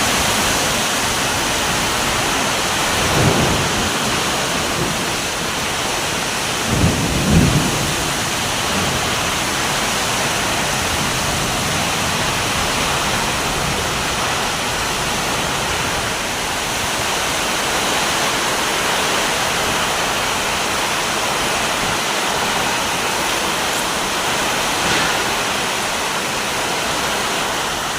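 Heavy rain falling in a steady hiss, with short low rumbles of thunder about three seconds in and again around seven seconds in.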